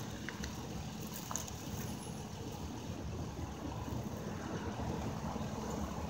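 Low, steady rumble of a distant diesel locomotive working, growing slightly louder toward the end, with a few faint clicks in the first second or so.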